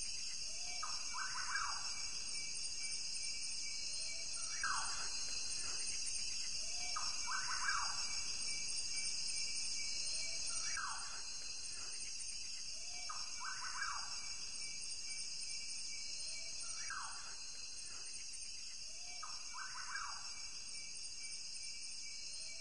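Savanna ambience: a steady, high chorus of insects, with a bird's falling call repeated about every three seconds, sometimes doubled.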